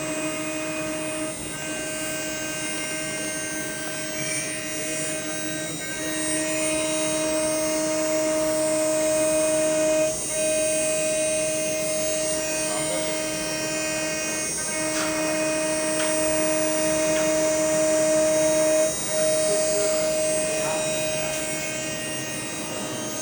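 CNC machine cutting a rubber-patch mould: a steady motor whine held at one pitch through each pass, breaking off briefly about every four and a half seconds as the tool changes direction.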